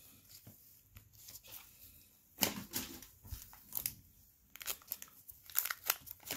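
Foil wrapper of a Topps Chrome Update trading-card value pack crinkling and being torn open: scattered crackly bursts that come thicker near the end, after a quiet start with faint clicks of cards being handled.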